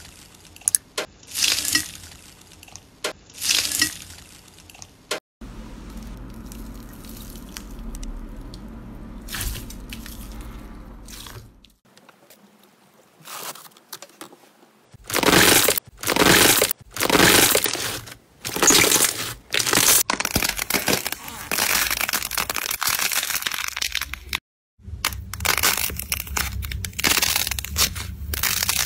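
Hands pressing and squeezing slime, giving irregular bursts of crackling and squelching. A low steady hum runs under some stretches, and the sound breaks off and changes at several cuts between slimes.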